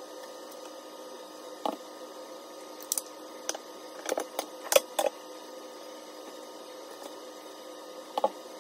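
Scattered light clicks and knocks of kitchen utensils, a colander and mesh skimmer spoon tapping against a cooking pot as rice is layered in, several in a cluster in the middle, over a steady hum.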